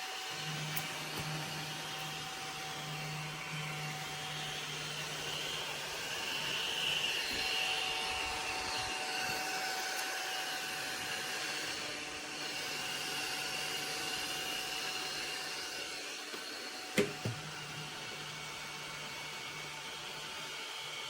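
Cordless mini desktop vacuum cleaner running steadily, a hum with a higher whine over hiss, with two sharp clicks close together about three-quarters of the way through.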